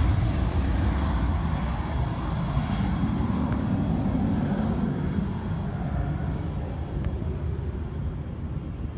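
Twin-turbofan Embraer Phenom 300 business jet climbing away after takeoff, its jet noise a steady rush that fades as it recedes.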